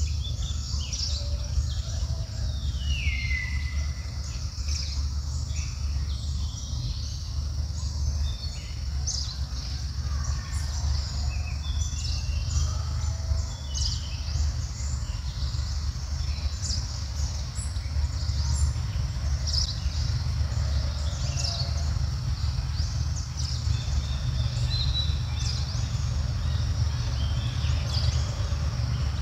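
Outdoor ambience of scattered short bird chirps over a steady low rumble, with one longer falling call about three seconds in.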